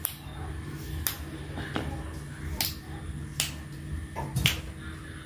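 Knife cutting vegetables by hand: short, sharp clicks at an irregular pace of about one a second, over a low steady hum.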